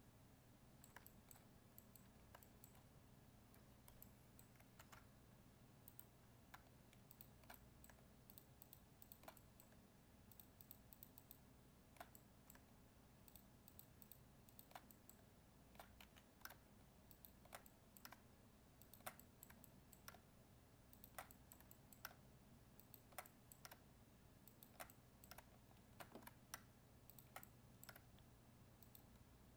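Faint, irregular clicks of a computer keyboard and mouse in use, coming more often in the second half, over a low steady hum.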